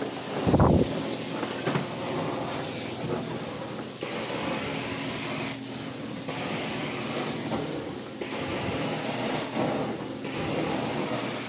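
Carpet-cleaning wand of a truck-mounted hot-water extraction unit, hissing and sucking over the carpet in repeated strokes, the noise dipping briefly every couple of seconds. A low thump about half a second in.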